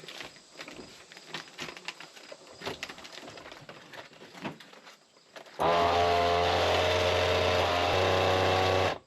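Faint knocks and handling noises, then about five and a half seconds in a countertop vacuum sealer starts with a steady electric motor hum. It runs for about three and a half seconds and cuts off suddenly, most likely resealing a freezer bag of corn that didn't seal.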